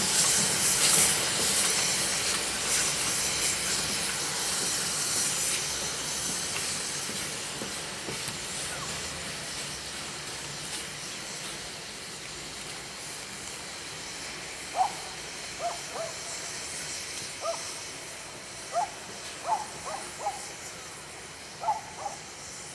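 Ol12-7 steam tank locomotive hissing steam as it moves off, the hiss loudest at first and fading steadily as it draws away. In the second half, a scattering of short, squeaky chirps.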